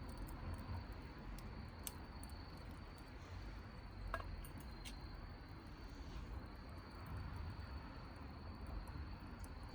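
Wood campfire burning quietly, with a few sharp crackles and pops. A steady high-pitched tone runs behind it.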